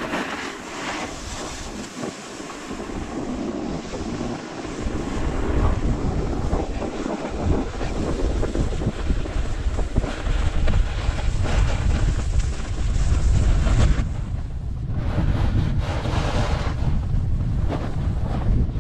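Snowboard sliding and carving down a groomed piste, its base and edges hissing and scraping over the snow, with wind buffeting the microphone. The wind rumble grows heavier about a quarter of the way in.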